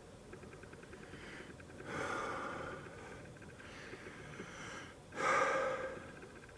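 A person breathing out heavily twice, about two seconds in and again, louder, about five seconds in.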